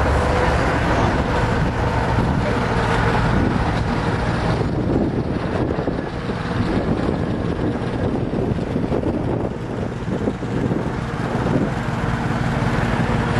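Semi-truck engine running steadily with a low hum, amid outdoor noise.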